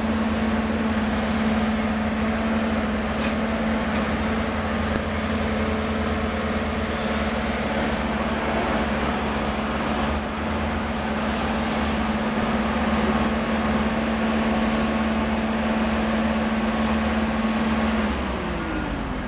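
Caisson core-drilling rig running steadily with a constant hum over the machine noise. Near the end the hum stops and a short falling tone follows as the rig winds down.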